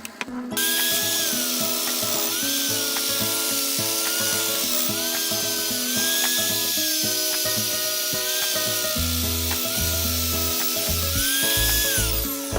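Background music over the steady scraping hiss of a turning tool cutting wood on a wood lathe.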